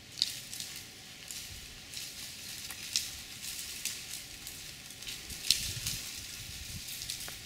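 Food sizzling on a propane grill: a steady hiss with a few sharp pops.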